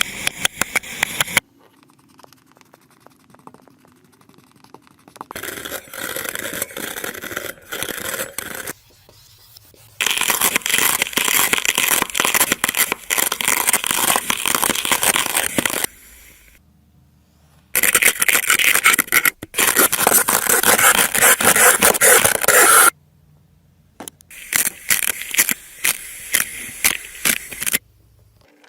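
Kinetic sand being scraped and crushed: a dense, crackly, grainy sound in five stretches of a few seconds each, with short quiet pauses between.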